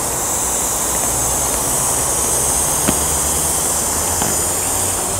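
Air hissing steadily as an Exped pump bag is squeezed, forcing air through the one-way inflation valve into a Trekology UL80 inflatable sleeping mat.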